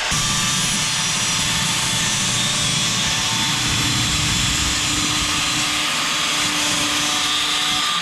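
A power tool cutting steel, running steadily without a break.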